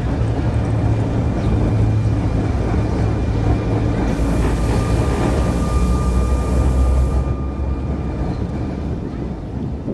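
Vintage electric tram running along its track, heard from on board: a steady low rumble of wheels and motor with a faint whine, and a hiss that rises for about three seconds midway.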